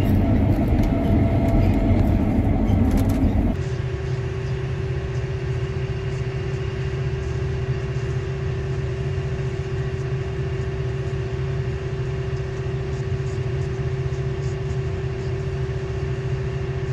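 Combine harvester running steadily during soybean harvest. About three and a half seconds in the sound changes abruptly from a rougher, louder running noise to a slightly quieter, even one carrying a constant steady hum.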